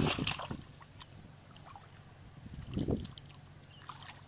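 Hands splashing and sloshing in shallow muddy water while grabbing for fish. There is a sharp splash at the start, a softer slosh about three seconds in, and a few small wet clicks near the end.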